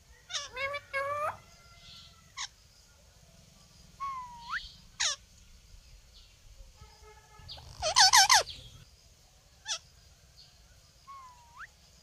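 Green Indian ringneck parakeets calling: a string of short, pitched calls and squawks, some sliding up or down in pitch, with the loudest, a wavering call, about eight seconds in.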